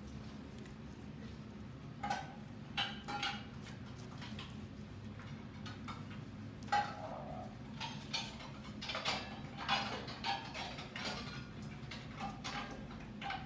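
A puppy pawing and tugging at an artificial ivy garland: irregular light clicks and rustles of the plastic leaves, coming in clusters.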